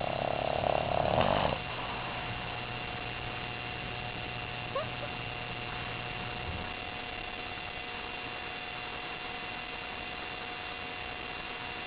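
Sleeping puppy snoring: one loud snore lasting about a second and a half at the start, then a brief faint squeak about five seconds in. A steady electrical hum runs underneath.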